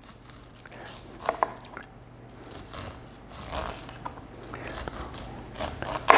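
A chef's knife slicing kernels off an ear of cooked corn on the cob: soft crunching scrapes as the blade runs down the cob, with two sharp clicks a little over a second in and a louder knock near the end.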